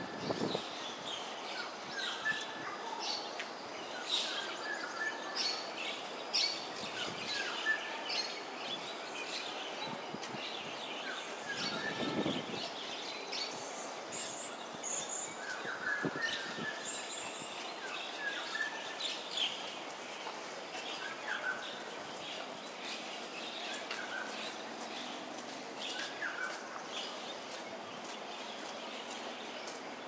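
Many birds chirping and calling in short, scattered notes over a steady high-pitched hiss.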